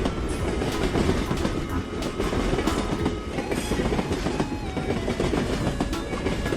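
Train running along the track, its wheels clattering over the rails with many sharp clicks over a steady rumble.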